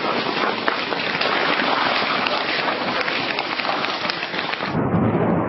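Wheels of a rolling suitcase rattling over platform paving, with footsteps: a dense, steady crackle of many small clicks. About five seconds in it gives way to a duller, lower rumble.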